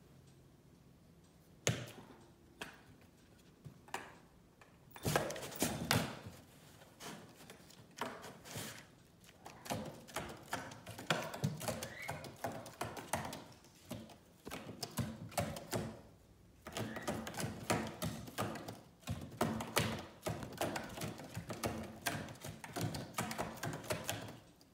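A cat scratching, tapping and pawing at a cardboard box: irregular rapid scratches and taps on the cardboard, sparse at first, then dense with short pauses, stopping suddenly at the end.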